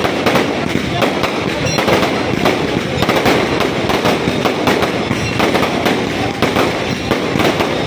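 Fireworks display: a rapid, continuous barrage of aerial shells bursting overhead, many bangs in quick succession over a dense crackle.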